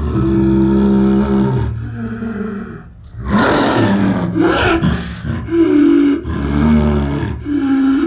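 Spinosaurus roar sound effects: a series of deep, drawn-out roars and groans, with a harsher, rasping roar about three seconds in.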